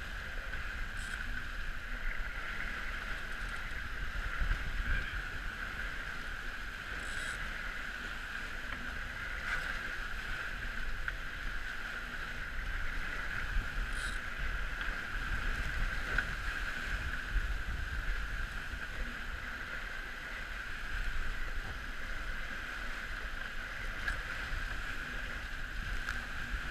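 Water rushing and splashing past the hulls of a Dragonfly trimaran sailing fast, with wind buffeting the microphone and a steady high hum running through it.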